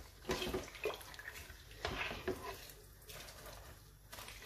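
Metal spoon stirring a watery mix of mince, soaked lentils and spices in a stainless steel pot: liquid sloshing with a few scrapes and knocks of the spoon against the pot, quieter in the last second or so.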